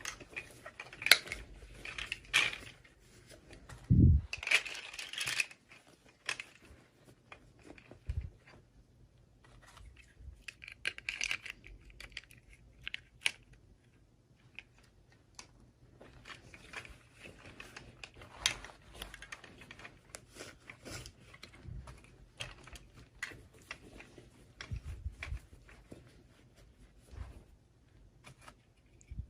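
Unboxing handling noise: plastic packaging crinkling and tearing, with scattered small clicks and taps of plastic pieces and a dull thump about four seconds in.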